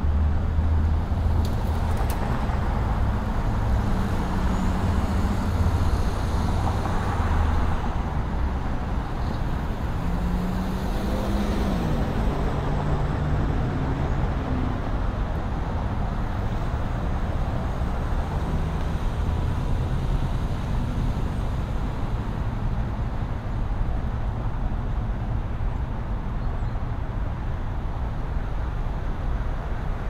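Steady city traffic on the riverside road: a continuous low rumble of car and van engines and tyres, with vehicles passing and an engine note falling in pitch about ten to twelve seconds in.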